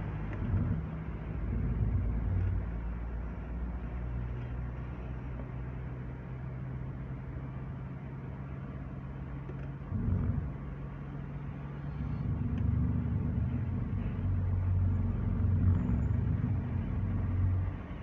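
Car engine idling while stopped, heard from inside the cabin as a low steady hum. It swells briefly about ten seconds in, and again for a longer stretch from about twelve seconds until just before the end.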